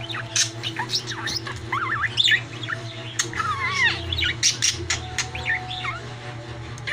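Budgerigar chattering: a rapid run of short chirps, warbles and clicks, the jumbled mumbling a talking budgie makes when it imitates words.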